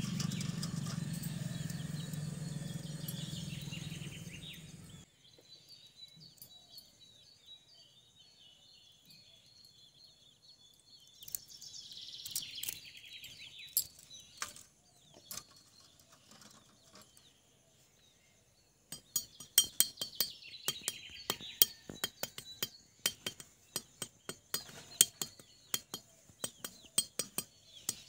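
Peeled boiled eggs and shell handled on a steel plate: light clinks and quick crackly taps, thickest in the second half, with small birds chirping faintly. The first few seconds hold a low steady hum that cuts off suddenly.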